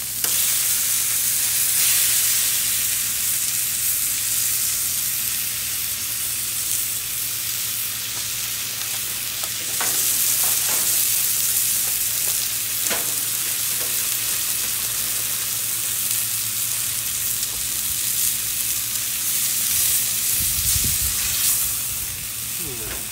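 Steaks sizzling on a hot Blackstone flat-top griddle: a steady frying hiss. A few short clicks come around ten and thirteen seconds in, and a brief low rumble near the end.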